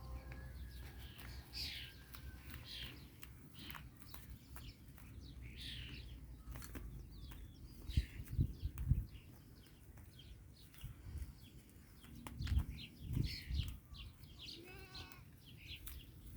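Farm livestock bleating now and then among many short bird chirps, with a call near the end. Low bumps come twice, about eight and twelve seconds in.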